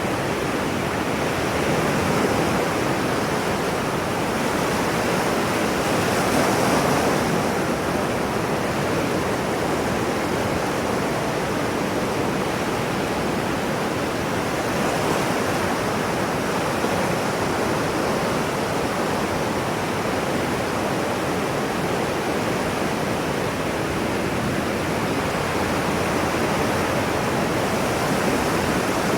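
Ocean waves as a steady, unbroken wash of surf, swelling slightly a couple of times.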